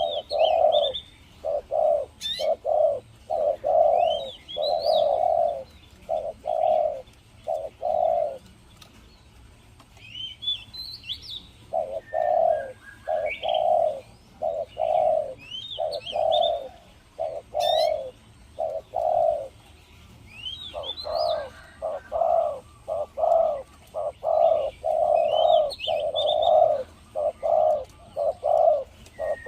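Decoy spotted dove cooing in long runs of repeated low coos, pausing for a few seconds about a third of the way through and briefly again later. Small birds chirp at a much higher pitch in between.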